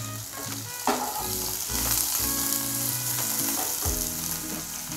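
Sliced red onions sizzling in hot sunflower oil in a kadai, stirred with a wooden spatula, with a single knock about a second in.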